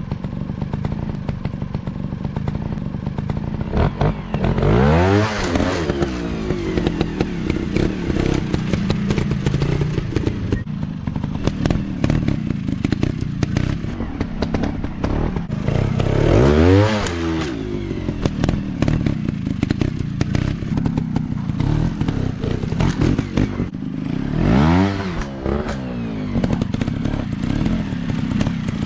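Dirt-bike engines running, with the revs rising and falling back three times.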